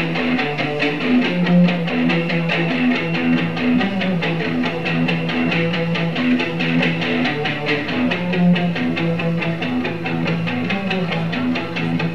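Live recording of a punk band: electric guitars strumming a fast repeating figure over bass and drums.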